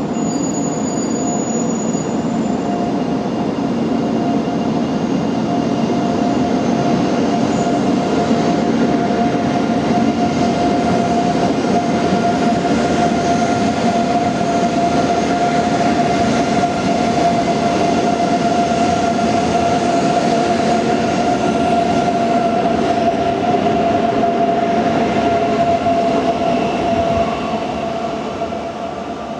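E2 series Shinkansen train pulling out at low speed, a steady high whine over the rumble of its wheels on the rails, easing off near the end as it draws away.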